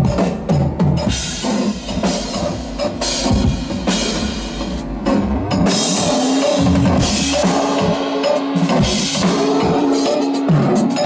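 Live drum kit playing a busy groove with kick, snare and cymbals, over a synthesizer; about halfway through, a low synth note starts pulsing in a steady repeat.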